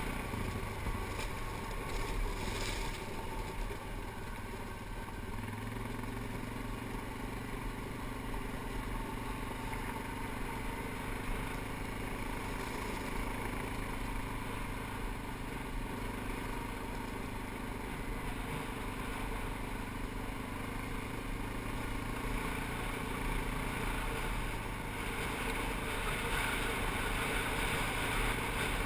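ATV engine running steadily under way, with the tyres rolling on a gravel road.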